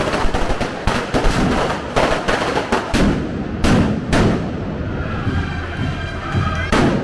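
Firecrackers going off: a rapid crackle of small bangs with several louder single bangs, one about two seconds in and two close together around four seconds. From about five seconds in, band music with steady held notes sounds under them.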